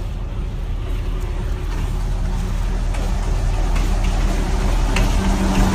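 A motor vehicle's engine running, a steady low drone with a held hum that grows a little stronger near the end.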